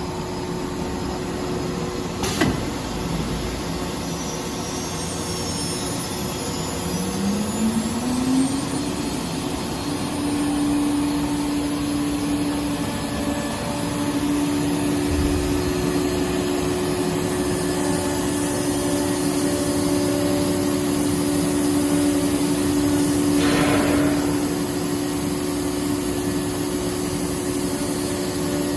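CNC router spindle spinning up, its whine rising in pitch about seven seconds in and then running at a steady pitch. A sharp click comes about two seconds in, and a short burst of hiss comes later.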